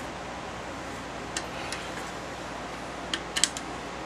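A handful of short, sharp clicks from handling and tightening a wood lathe's tailstock: two about a second and a half in, then a quick cluster near the end, over a steady low shop hum.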